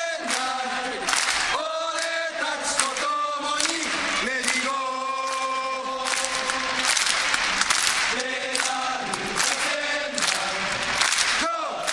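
Football supporters in the stands singing a chant together, mostly male voices, over a regular beat of sharp strokes.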